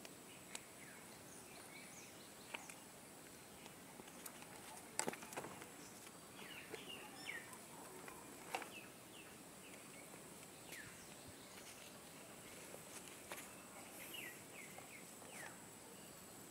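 Faint outdoor ambience: a steady high hiss, short falling chirps in small clusters several times through the middle and near the end, and a few light clicks, the sharpest about five seconds in.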